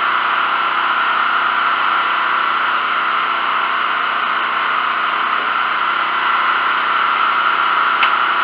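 Sportsman 4000-watt propane generator's four-stroke engine running steadily with a fan plugged in as its load. There is a single sharp click near the end.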